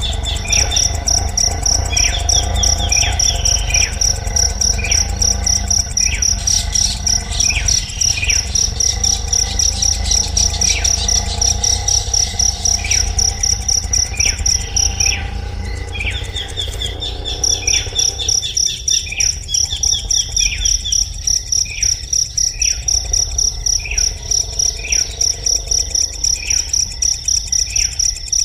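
A high, fast-pulsing insect trill, like a cricket, that breaks off for a couple of seconds about halfway, with short falling bird chirps repeated roughly once a second, over a low steady hum.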